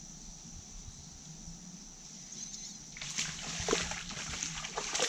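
A hooked panfish thrashing at the water's surface, a rapid run of splashes starting about three seconds in.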